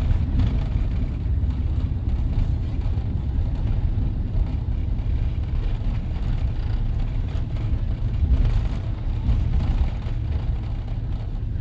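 Boeing 767-300ER cabin noise: a steady low rumble of the engines and airframe on the ground after landing.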